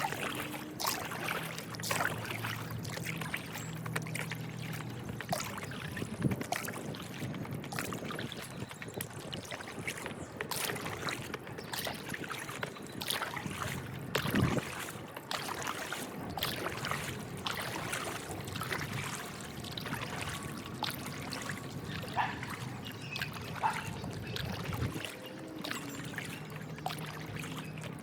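Stand-up paddle strokes in calm water: the blade dipping and pulling, with small splashes and water trickling off the paddle.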